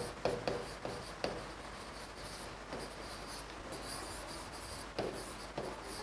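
Stylus writing on an interactive touchscreen board: faint scratching of the pen tip across the screen, with light taps as it touches down, several in the first second and a couple more about five seconds in.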